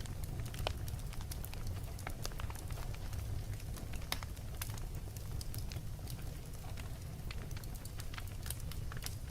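Wood fire in a fireplace crackling, with frequent small sharp pops at irregular intervals over a steady low rumble.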